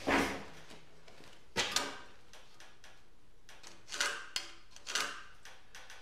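Timber beams knocking and clunking as they are handled: about six irregular knocks, two in quick succession a little before two seconds in and a few more near the end.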